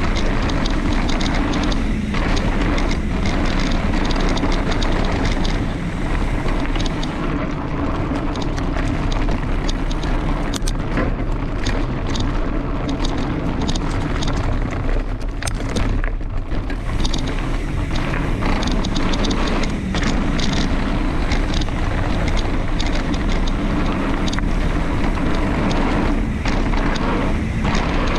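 Wind rushing over the microphone during a fast mountain-bike descent, with a constant rattle and many sharp knocks from the bike going over rough trail.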